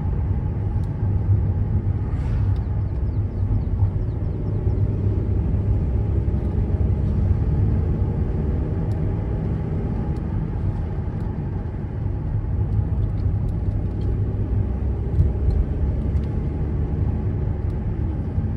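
Steady low drone of engine and tyre noise inside a VW California camper van's cabin while driving, with a few faint clicks.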